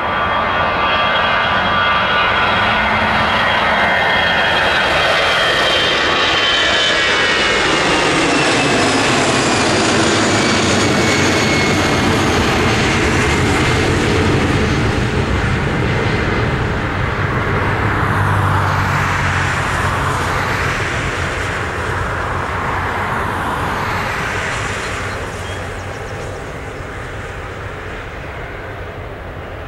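Airbus A320's twin CFM56 turbofan engines at takeoff power as the jet lifts off and climbs away: a loud roar with a high whining fan tone that slides down in pitch over the first dozen seconds. It turns into a rumbling roar that fades near the end.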